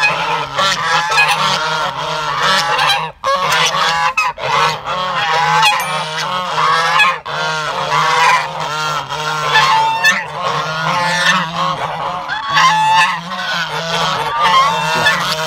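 A flock of white domestic geese honking at close range, many calls overlapping with hardly a break, as the birds crowd around their keeper and call at him.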